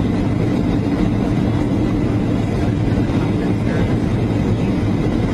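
Jet airliner cabin noise in flight: a steady low drone of the engines and rushing air, heard from inside the cabin.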